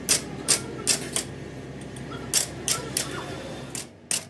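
Light metallic taps and clicks of tools on metal, about nine of them at uneven spacing.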